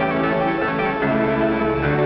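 Instrumental soundtrack music: held notes over a bass line, the chords shifting every half second or so.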